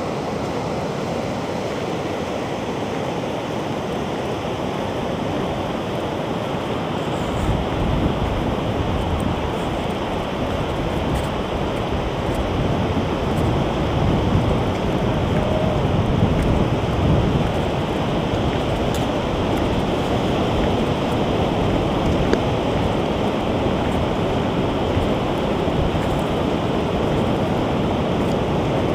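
Ocean surf washing steadily onto a sandy beach, with wind rumbling on the microphone, heavier from about seven seconds in.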